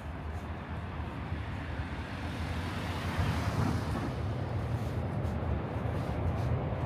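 Street traffic with a steady low rumble, and a vehicle passing close by whose tyre noise swells to its loudest about three seconds in.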